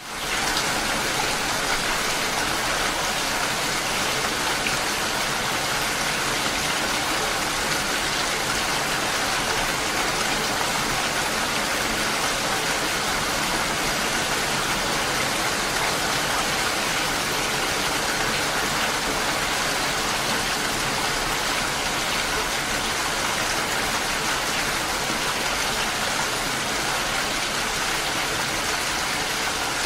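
Steady rainfall, an even dense hiss of drops with no pauses, fading in quickly from silence at the very start.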